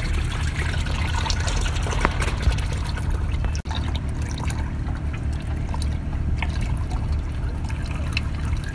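Gear oil draining from the transmission drain plug of a JCB boom loader, pouring and splashing into a plastic catch tub, then trickling in thinner streams. A steady low hum runs underneath.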